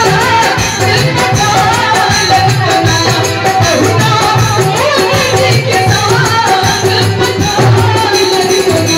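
A woman singing into a microphone over live keyboard and percussion accompaniment, played through a PA system.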